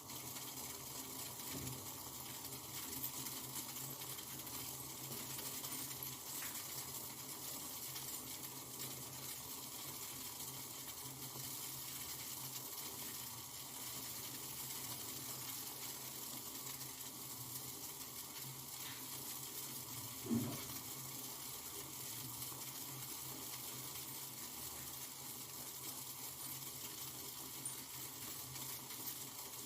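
Steady hiss of a gas stove burner and a pot of herbal decoction heating toward the boil, with one brief louder sound about two-thirds of the way through.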